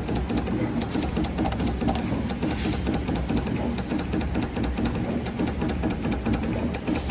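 Automatic PVC label dripping machine running as its multi-nozzle dispensing heads work over the mould. A steady low hum with fast, evenly spaced ticking throughout, like a sewing machine.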